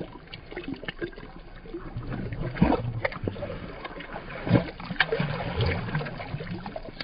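Redfish splashing and thrashing at the water's surface while hooked on the line, in irregular bursts of sloshing and dripping water, with the two loudest splashes a little before the middle and again past it.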